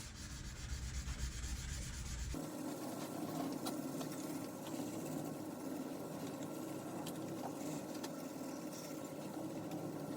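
Hand sanding a chef knife blade with 600-grit sandpaper: a steady scratchy rubbing of abrasive paper on steel. The sound changes a little over two seconds in, losing its low rumble.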